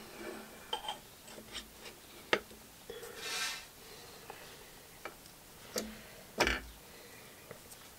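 Light metallic clicks and taps as a ringed piston is set into a tapered piston ring compressor on the engine block, with a brief rub partway through. The loudest sound is a duller knock about six and a half seconds in.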